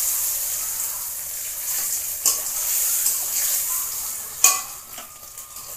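Dried red chillies sizzling in hot oil in a steel kadai with cumin seeds and a bay leaf, a spice tempering (phoron). The sizzle starts loud and slowly dies down, while a metal spatula stirs and scrapes the pan with a couple of clinks, the sharpest about four and a half seconds in.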